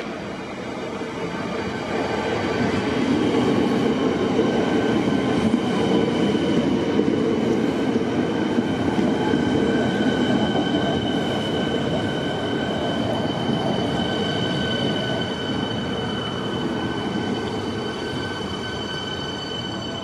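Siemens Nexas electric suburban train pulling into the platform and slowing as its carriages pass close by, with the wheels rumbling on the rails. A steady high whine runs through it and grows more prominent in the second half.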